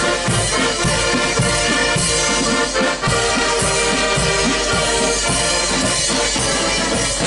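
Marching accordion band playing: many piano accordions sounding sustained chords together over a steady beat from a bass drum and side drums.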